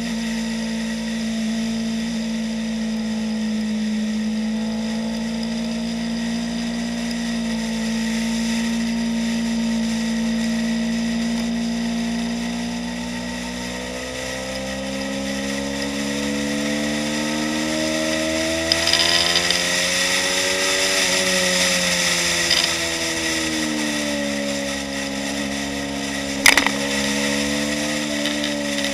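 2015 Yamaha YZF-R3's parallel-twin engine running at track speed, heard from a bike-mounted action camera. The revs hold steady at first, then climb in pitch for several seconds and fall back again, with a brighter hiss at the peak. A single sharp click comes about two seconds before the end.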